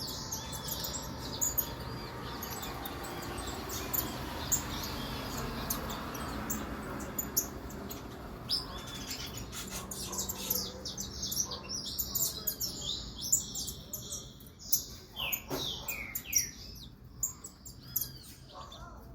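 Female saffron finch in breeding condition chirping: a rapid string of short, high calls, busier in the second half, with a few quick downward-sweeping notes about two-thirds of the way through.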